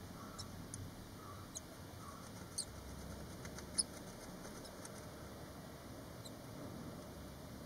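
Barn swallow nestlings about five days old giving faint, scattered high squeaky peeps, the loudest two coming about two and a half and nearly four seconds in.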